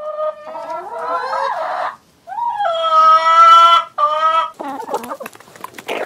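Chickens calling and clucking, with one long drawn-out call held at a steady pitch about two seconds in, then short choppy clucks near the end.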